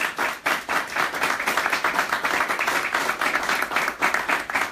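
A small group of people applauding, many hand claps overlapping.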